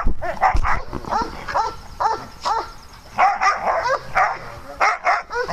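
Dogs barking and yipping in rough play: short, high barks coming one after another, sometimes in quick runs of two or three.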